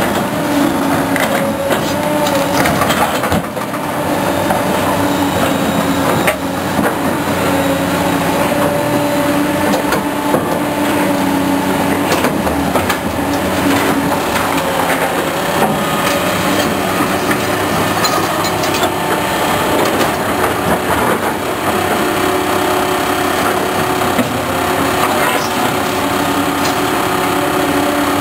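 Heavy highway construction machinery running steadily, a loud engine drone that drifts a little in pitch, with scattered clanks and knocks.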